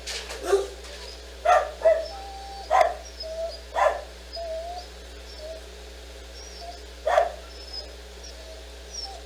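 A dog barking in short single barks, about six of them, the last a few seconds after the others.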